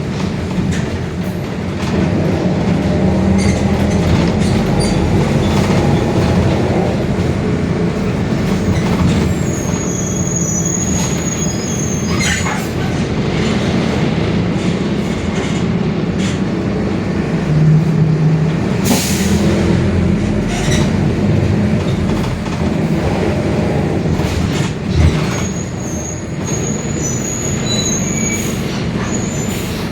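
Mercedes-Benz OF-1721 Bluetec 5 bus running along, its engine and drivetrain a steady loud rumble with the differential growling. Scattered rattles and knocks, with brief high squeals about a third of the way in and near the end.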